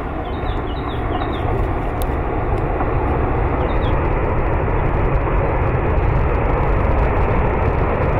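Deep, steady rumble and rush of a large mass sliding down a mountainside, slowly growing louder.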